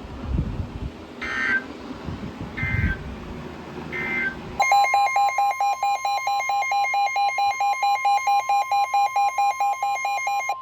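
Three short warbling data-burst chirps of Emergency Alert System digital code over a low rumble, the end of one alert message. About four and a half seconds in, a loud alert signal starts: a steady high tone, the weather-radio warning tone, with a rapid pulsing beep over it at about five pulses a second, announcing the next warning.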